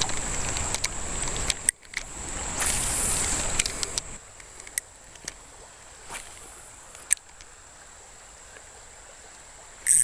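Shallow creek water sloshing and splashing close by, loud for the first four seconds or so. It then drops to a quiet stream murmur with a few small clicks.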